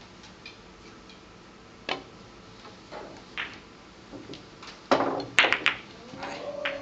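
Hard clacks of billiard balls striking on a pin-billiards table: a few scattered clicks, then a loud cluster of clacks about five seconds in.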